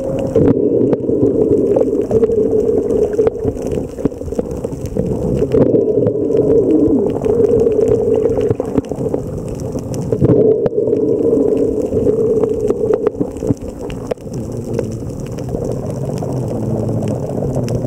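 Underwater sound as picked up by a camera in the sea: a steady drone, like a boat engine carried through the water, with a rush of water and scattered sharp clicks. The drone eases somewhat near the end.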